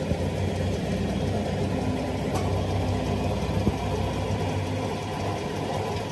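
Hydraulic press's motor-driven pump running with a steady low hum while the ram bears down on a bush fitted to a truck front axle; a couple of faint clicks.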